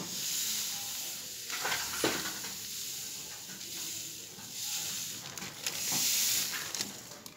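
Salt pouring from a plastic bag into a glass of water: a steady hiss of falling grains that swells and fades, with the plastic bag rustling and a few light knocks.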